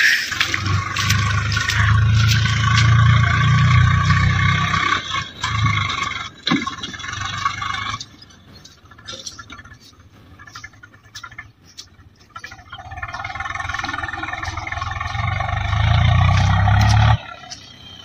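Swaraj tractor's diesel engine running as the tractor drives up and over paddy-field embankments. It drops away abruptly about eight seconds in, builds back up a few seconds later and cuts off suddenly near the end.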